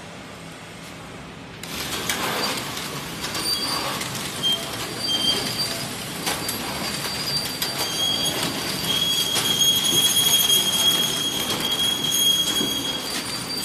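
Paper-film pillow-type flow wrap packing machine running: a dense mechanical clatter with many rapid ticks and several high-pitched whining tones that come and go. It is fainter at first and gets much louder suddenly about two seconds in.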